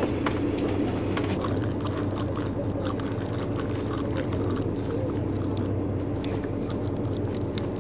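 Boat engine running with a steady low hum, with scattered light clicks and ticks over it from the conventional fishing reel being worked by hand.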